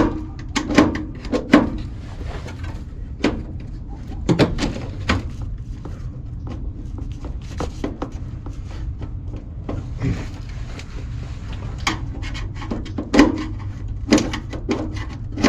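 Irregular clicks, taps and knocks of hand work on an outdoor AC condenser while its low-voltage wiring is disconnected, over a steady low rumble.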